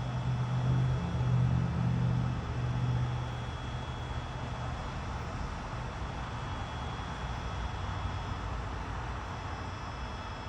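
A low motor hum over steady background noise, louder for the first three seconds and then fading.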